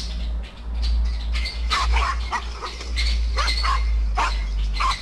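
Several dogs barking in short, sharp calls as they confront a king cobra, over a steady low rumble.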